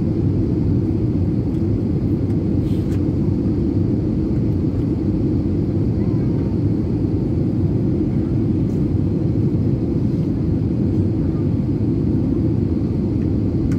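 Steady low rumble of engine and airflow noise inside the cabin of an Airbus A320neo on final approach, heard from a seat over the wing with the flaps extended.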